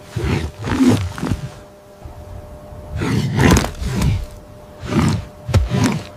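Lion snarling and growling in a string of short, loud bursts, each lasting about half a second to a second, with gaps between them.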